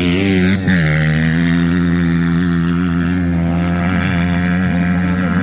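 Motocross motorcycle engine running at steady high revs, with a brief dip in pitch about half a second in. Other bikes' engines rise and fall faintly behind it.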